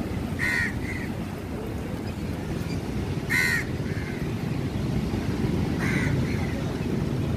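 Crows cawing three times, a few seconds apart, each harsh caw followed by a shorter, weaker one, over a steady low rumble of wind and surf.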